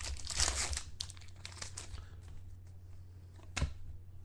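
Foil trading-card pack wrapper crinkling as a pack of football cards is handled and opened, then quieter rustling of cards with a sharp click about three and a half seconds in.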